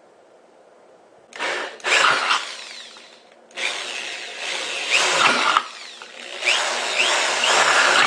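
Power drill running in three bursts, starting about a second and a half in, as its bit bores holes through the steel bottom of a tuna can. There are short rising squeals in the later bursts.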